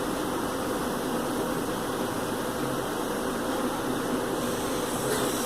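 Steady mechanical hum and hiss, with no distinct events.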